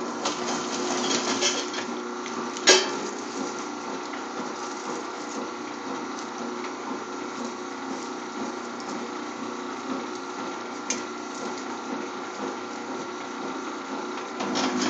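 WS-0251 scrap copper wire stripping machine running steadily as a length of 6 gauge tray cable feeds through its rollers and cutters, slitting the outer jacket. One sharp snap about three seconds in.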